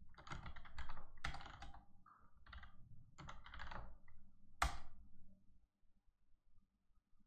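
Typing on a computer keyboard in quick bursts of key clicks, with one harder single keystroke about four and a half seconds in. The keys go quiet for the last couple of seconds.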